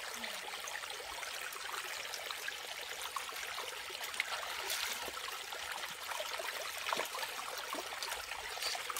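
Shallow rocky stream trickling steadily, with scattered small clicks and a brief louder swish about five seconds in.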